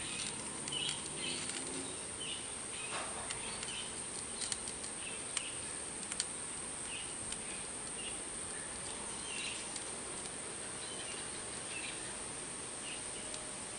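Quiet steady background hiss with faint, scattered high chirps every second or so and a few small clicks.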